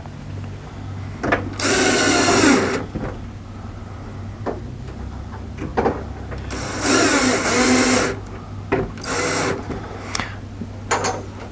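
Cordless screw gun driving screws into the cabinet's door hinges: three runs of motor whine, about two seconds in, about seven seconds in and a shorter one near nine seconds, with light knocks between them.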